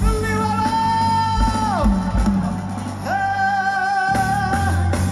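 Live rock band playing with drums and bass: a long held high note slides down at its end, then a second long note is held steady from about three seconds in.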